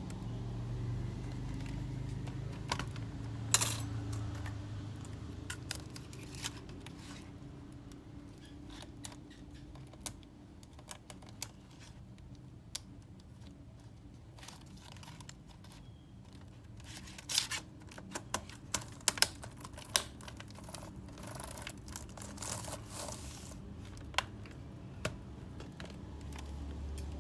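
Irregular light clicks and taps, with a quick run of them about two-thirds of the way through, over a low hum that fades after the first few seconds.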